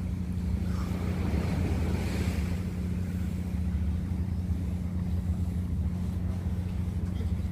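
Sea washing against the rocks, swelling about a second in, with wind on the microphone over a steady low hum.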